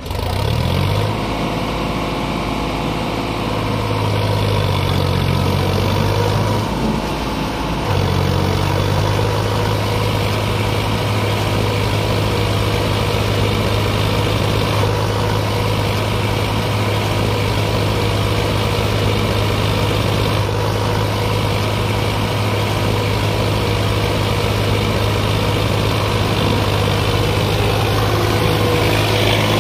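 Sonalika RX 50 tractor's diesel engine working hard in deep mud, its revs shifting over the first several seconds and dipping briefly, then held steady and high.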